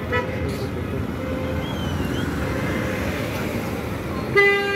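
Road traffic passing close by, with short car-horn toots at the start and a longer, steady horn blast near the end that is the loudest sound.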